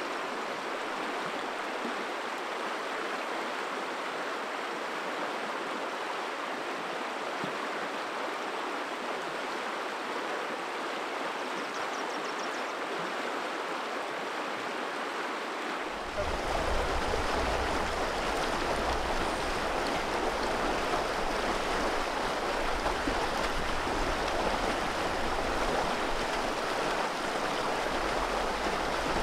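River water rushing steadily over its bed. About halfway through it gets louder and a low rumble joins it.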